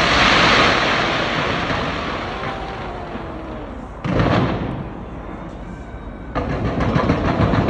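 Aerial fireworks going off: a bright crackling hiss fades over the first few seconds, another sudden burst comes about four seconds in, and dense rapid crackling from many small bursts starts a little after six seconds.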